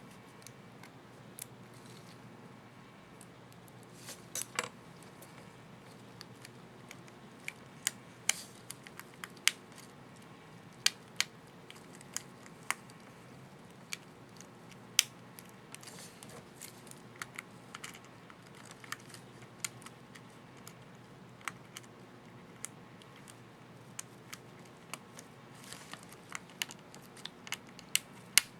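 Irregular small plastic clicks and snaps from the Enter keycap and its retaining clips on an HP ProBook 4540s laptop keyboard as they are handled and fitted, a few sharper snaps among lighter ticks.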